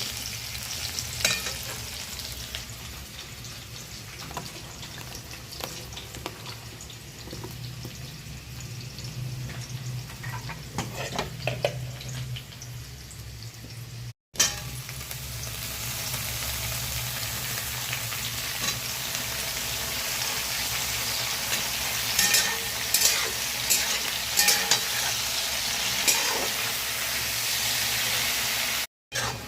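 Potato and aubergine frying in oil in a pan, sizzling steadily while a spatula stirs, scraping and clicking against the pan. About halfway the sound cuts out for a moment and the sizzling comes back louder.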